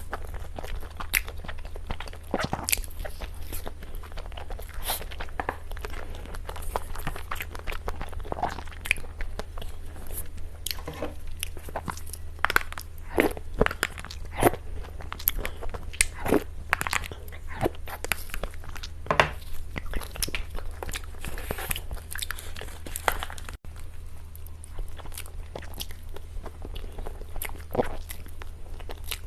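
Close-miked eating of cake: bites and chewing as a dense run of sharp clicks and crackles, busiest in the middle, over a steady low hum.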